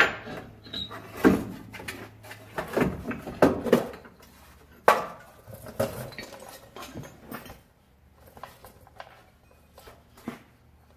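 Metal clanking and knocking from the loose exhaust pipe and muffler being handled, a run of sharp clanks that thins out to fainter ones about halfway through.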